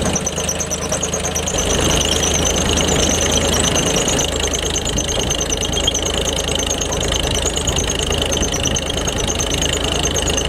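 Farmall H tractor's four-cylinder gasoline engine running steadily with a chugging knock, turning a long flat belt off its belt pulley to drive an Archimedes-screw dike pump. The engine gets a little louder about two seconds in.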